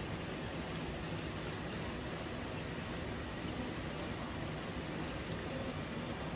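Chicken wings deep-frying in a pot of hot oil: a steady sizzle with a few faint pops.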